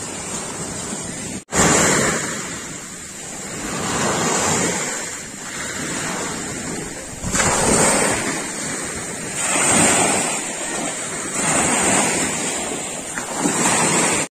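Sea waves washing onto a beach at night, the rush of surf swelling and fading every two to three seconds.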